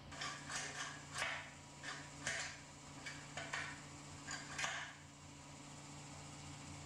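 Metal latch handle of a homemade log-splitter table lift being worked by hand in its steel pipe sleeve: about ten short metallic clanks and scrapes over the first five seconds, over a steady low hum.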